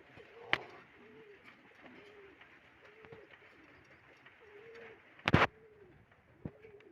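Pigeons cooing, a low coo rising and falling about once a second. A sharp click comes about half a second in, and a brief, louder run of knocks about five seconds in.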